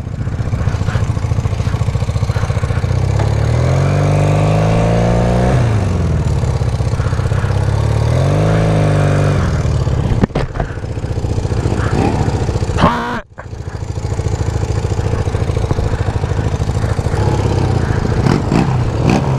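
Motorcycle engine running while riding at low speed, revving up twice with the pitch rising and then falling back, and a steady low rumble in between.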